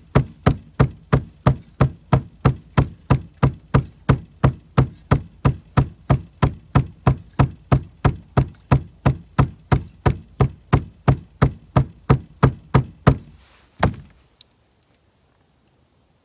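Steady, even rhythmic knocking, about three and a half knocks a second, that stops abruptly near the end.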